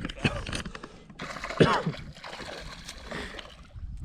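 Water splashing, a burst of splashing that starts about a second in and runs for about two seconds.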